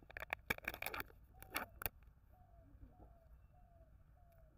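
Foil lid of a Kinder Joy egg tray being peeled off, a run of sharp crinkling crackles for about two seconds. Then a bird calls in the background with short falling notes, about two a second.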